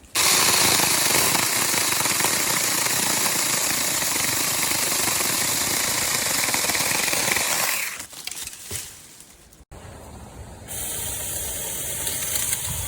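Battery-powered 6-inch mini chainsaw running and cutting through wood. It runs loud and steady for about eight seconds, then stops. After a short lull, a second stretch of the same steady noise starts near the end.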